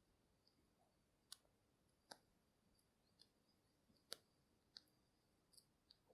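Faint, irregular clicks and crackles from matches, about a dozen scattered unevenly, the loudest about four seconds in.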